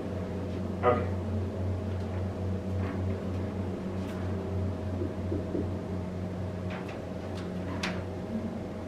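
Steady low room hum, with a few short scratches of a marker writing on a whiteboard, the loudest about a second in and more near the end.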